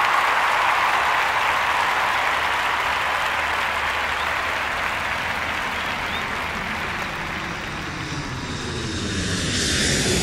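Crowd applause fading out, then an aircraft flying past that builds toward the end, its sound sweeping in pitch as it goes by.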